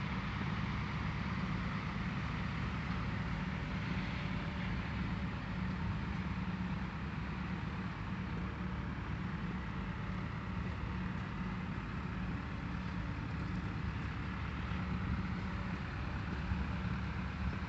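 Diesel engine of heavy dredging equipment running at a steady speed, a constant low hum that does not change.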